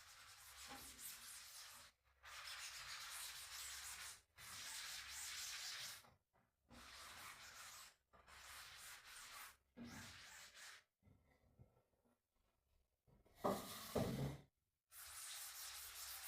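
Quiet rubbing and scrubbing noise, like a cloth or sponge wiping a surface during cleaning, in short stretches broken by abrupt cuts, with a couple of louder knocks about three-quarters of the way through.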